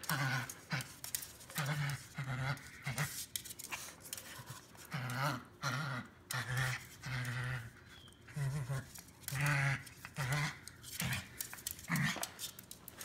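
Chihuahua panting with grunting breaths in short, irregular bursts, about one or two a second with brief pauses.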